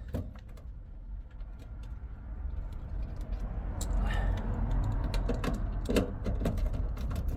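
Scattered light clicks and knocks of the fuel tank pump unit and its fittings being handled, over a low rumble that grows louder about four seconds in.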